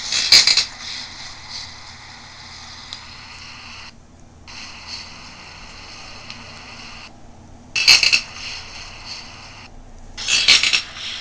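Handling noise of a hand-held voice recorder being set down: three clusters of knocks and scrapes over the recorder's steady hiss, which cuts out briefly three times.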